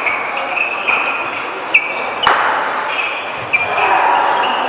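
Badminton shoes squeaking in short, repeated chirps on the court floor as players move, with one sharp smack a little over two seconds in.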